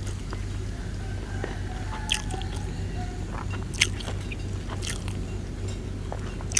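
Grilled catfish being torn apart by hand, with a few sharp crackles from the charred skin, and some chewing, over a steady low hum.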